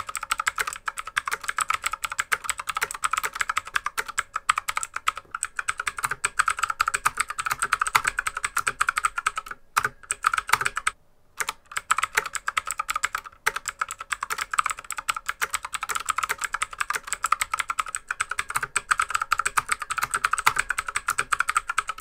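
Fast typing on an AUKEY budget mechanical keyboard whose keycaps are fitted with rubber O-ring dampeners, two per key: a dense run of key clicks, still quite noisy, with a short pause about halfway.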